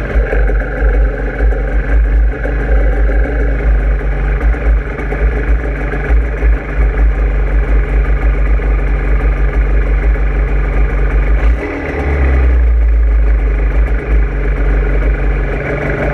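A vehicle engine running steadily with a heavy low rumble, dipping briefly about twelve seconds in and then settling into a steadier hum.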